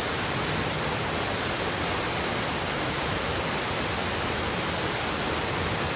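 Steady rush of a small waterfall and stream close by, an even hiss of falling water.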